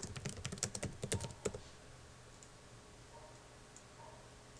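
Typing on a computer keyboard: a quick run of keystrokes for about a second and a half, then only a faint steady low hum.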